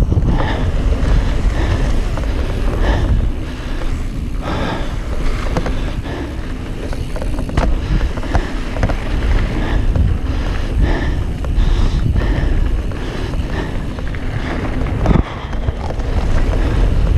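Wind buffeting the microphone of a camera on a mountain bike riding fast down a dirt trail, over the rumble of the tyres on the dirt. Scattered rattles and clicks from the bike run through it.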